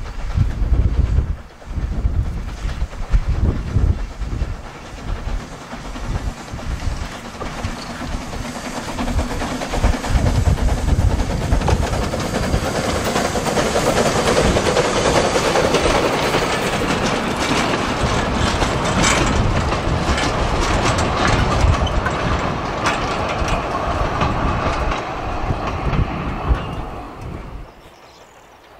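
Narrow-gauge steam train, Px38 805 locomotive hauling a coach and goods wagons, running past at close range: a rumble with wheels clattering over the rail joints, loudest about halfway through as the wagons roll by, then fading. The sound drops away abruptly near the end.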